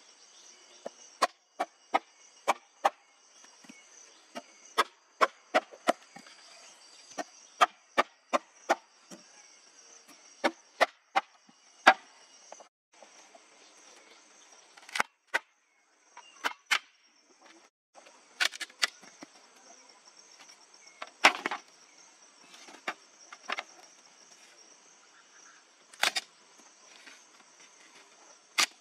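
Large knife striking and splitting bamboo poles: a run of sharp knocks about one a second for the first twelve seconds, then scattered strikes. A steady high insect drone runs underneath.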